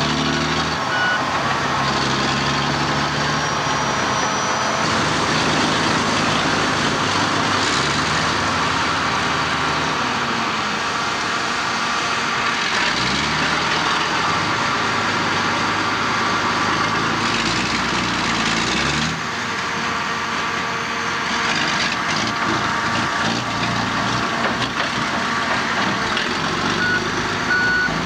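AEC Mercury dump truck's diesel engine running under load as the lorry drives across rough ground, its revs rising and falling twice, about thirteen and eighteen seconds in. A reversing alarm beeps briefly at the start and again near the end.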